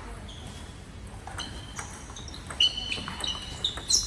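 Table tennis rally: a celluloid-type ball clicking back and forth off bats and table, several hits at an uneven pace, quickening in the second half. Short high squeaks sound between the hits.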